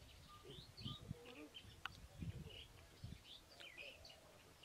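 Faint outdoor quiet with small birds chirping: many short, quick chirps scattered throughout.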